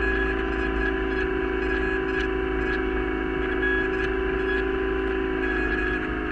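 Light propeller plane's engine and propeller droning steadily in level flight, a constant hum of several steady tones over a low rumble.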